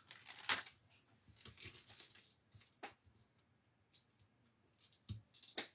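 Faint scattered clicks and brief rustles of a clear plastic bag and small die-cut paper pieces being handled and slipped back into the bag.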